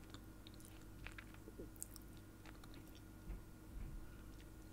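Faint chewing of a snack, with scattered small crunching clicks.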